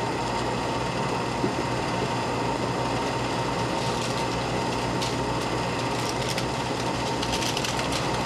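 Film projector running: a steady mechanical whir with a constant hum and scattered faint crackles.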